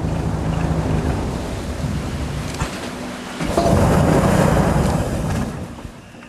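Airboat engine and air propeller running with a steady drone and rushing noise. It swells louder about three and a half seconds in, then drops away near the end as the boat slows.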